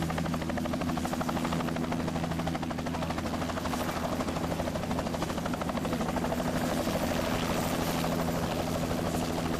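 Bell 206L LongRanger helicopter hovering just above its pad and settling down, the main rotor's fast, steady blade chop over the hum of its turbine engine.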